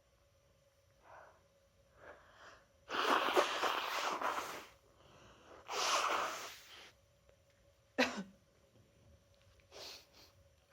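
A person with a head cold sneezing, the sneezes brought on by chhinkni sneezing powder. A long, loud sneeze comes about three seconds in, another around six seconds, and a short, sharp one about eight seconds in, with quick breaths between.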